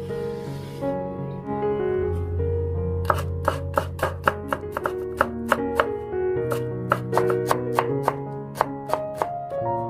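A knife chopping on a cutting board, quick strokes at about four a second, starting about three seconds in and stopping near the end, over background music.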